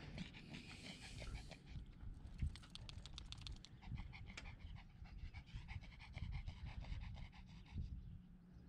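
A small dog panting in quick, even breaths.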